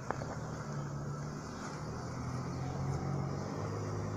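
Aircraft passing overhead: a steady engine drone with a low hum that drops in pitch near the end.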